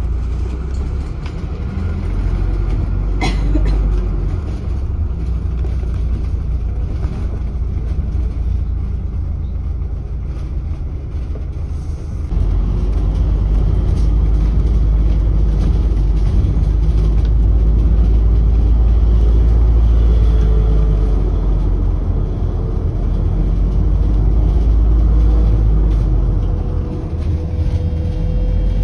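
Double-decker bus engine and road rumble heard from inside the upper deck, a steady low drone that grows louder about twelve seconds in. A single sharp click about three seconds in, and a faint steady whine joins in during the last third.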